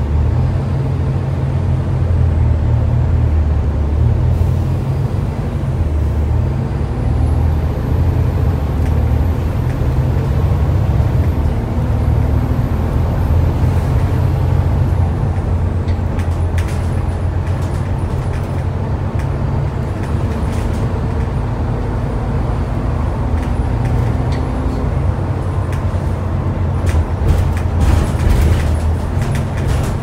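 Volvo B7TL double-decker bus's six-cylinder diesel running steadily under way, heard from inside the passenger saloon, with a faint high whine that rises, holds and fades in the middle. The body gives clicks and rattles that grow busier near the end.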